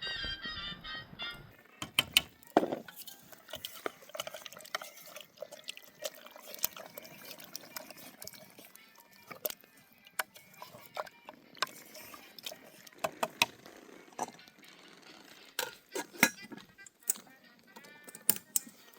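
Irregular clinks and knocks of cooking utensils and pots, with some liquid pouring and dripping sounds. A short stretch of music ends about a second and a half in.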